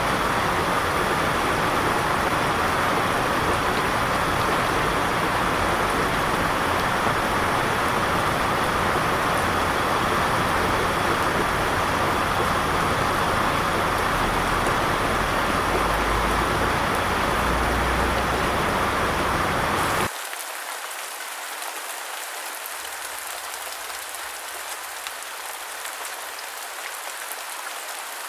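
Steady rain falling, a dense, heavy hiss with a low rumble under it; about twenty seconds in it cuts abruptly to a quieter, lighter drizzle without the rumble.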